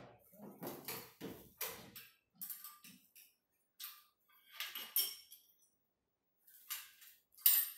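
Spanners and bolts clinking and scraping against the steel base frame of a manual treadmill during assembly. About ten short metallic clinks and scrapes come at irregular intervals, and the sharpest, loudest one comes near the end.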